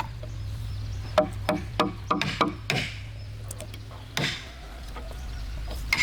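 Irregular sharp knocks of tools working wood, a few a second at times, with short scraping swishes between them and a steady low hum underneath.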